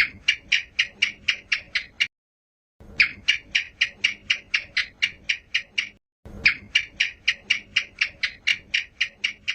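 House gecko (cicak) calling: three runs of rapid clicking chirps, about four to five a second, each run lasting two to three seconds with short silent gaps between.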